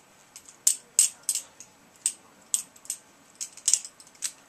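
Benchmade 42 balisong being flipped: an irregular string of about ten sharp metallic clicks as the handles swing around and strike the blade tang and each other.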